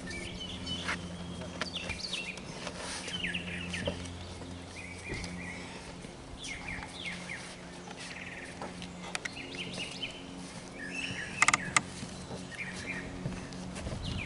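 Birds chirping, over a steady low hum. A brief sharp clatter sounds about eleven seconds in.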